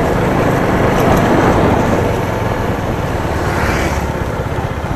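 Motorcycle engine running while riding, with a heavy rush of wind noise on the microphone. The wind rush eases toward the end.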